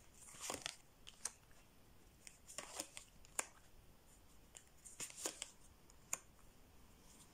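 Tarot cards being handled on a table: three brief papery rustles, each followed by a crisp snap as a card is set down.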